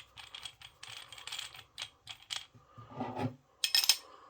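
Metal parts of a brake caliper rewind tool clicking and rattling as it is fitted back together by hand: a quick run of light clicks and taps, with a sharper clatter near the end.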